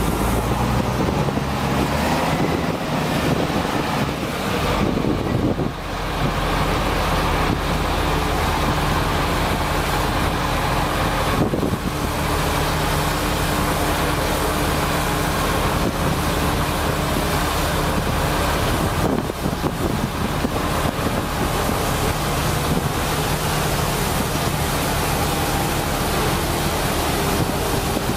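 Heavy truck's engine running steadily, its low hum under a constant rush of noise.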